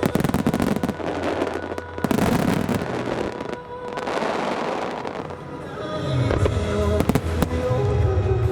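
Aerial fireworks bursting and crackling in a dense barrage over a music soundtrack. The crackle thins out about halfway through, then the music with its bass comes back up from about six seconds in, with more sharp bangs.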